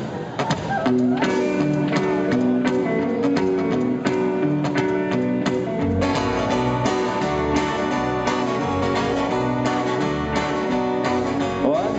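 Live rock'n'roll band playing the instrumental intro of a song: a picked guitar line, with the band filling out with more bass and drums about halfway through.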